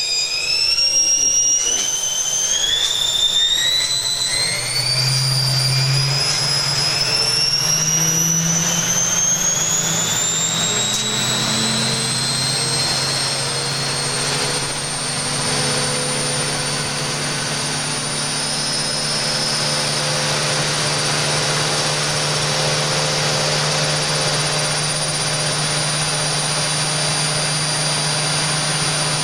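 Washing machine motor and empty drum spinning up at extreme speed. A high whine climbs in small steps for about the first half, then holds steady at top speed over a low hum.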